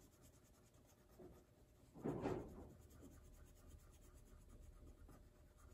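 Crayon rubbing back and forth on paper as petals are filled in, faint, briefly louder about two seconds in.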